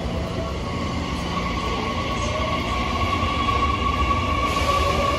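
JR Kyushu stainless-steel electric commuter train pulling out of a platform: traction motor whine climbing in pitch and getting louder as it gathers speed, over wheel and rail rumble.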